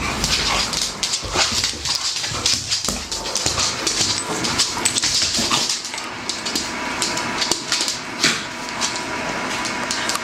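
A dog whimpering amid a steady jumble of rustling and knocking.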